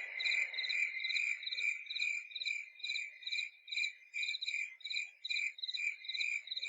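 Recorded cricket chirping played through a sleep alarm clock's speaker as one of its sleep sound scenes: an even train of high chirps, about two to three a second.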